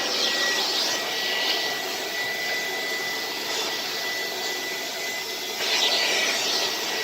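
Vintage Air-Way Sanitizor Mark V vacuum cleaner running with the dusting brush on its hose, a steady rush of suction with a steady high whine. The rush grows louder and brighter about six seconds in.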